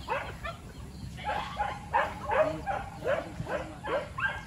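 Hunting dogs barking and yelping rapidly, about three short calls a second, each falling in pitch: the excited cry of dogs chasing a civet (dedes).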